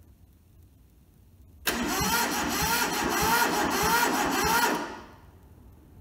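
Toyota SDK4 skid steer's diesel engine cranking on its starter motor for about three seconds, with an even, rhythmic turning-over beat, then stopping without catching: the long-idle engine won't fire, which the owner takes for fuel that needs bleeding at the injectors.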